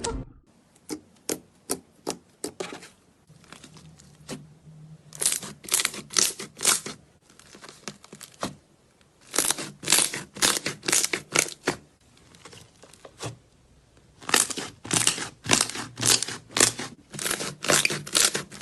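Slime being pressed and worked, giving off runs of sharp crackling pops that sound like a back being cracked. The crackles come in four or five clusters of several pops each, with short quiet gaps between them.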